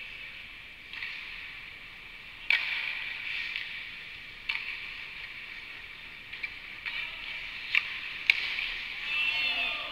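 Ice hockey skate blades scraping and hissing on the ice, with several sharp clacks of sticks and puck, the loudest a little over eight seconds in as players close on the net.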